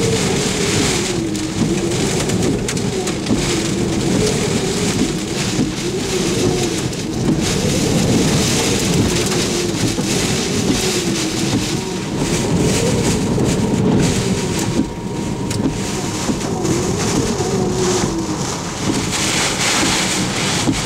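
Hurricane-force eyewall wind and driving rain battering a car, heard from inside it: a steady rushing noise with a whistling tone that wavers up and down in pitch.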